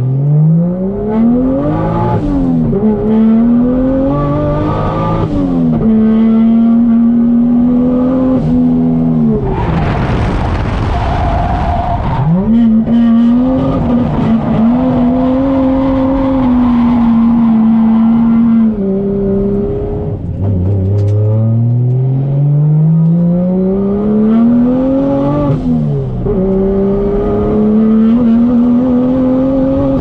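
Toyota 1JZ VVTi 2.5-litre inline-six in a drifting Nissan 240SX S13, heard from inside the cabin. It is revved hard and held at high revs, and its pitch drops sharply several times, with one long steady climb about twenty seconds in. A burst of hissing tyre noise comes about ten seconds in.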